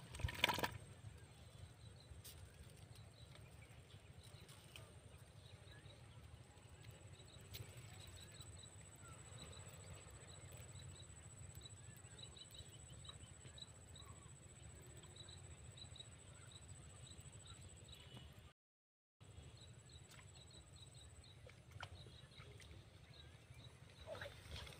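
Quiet rural outdoor ambience: a small bird's short high chirps repeat throughout over a steady low rumble and a faint steady high whine. The sound drops out briefly about three-quarters of the way through.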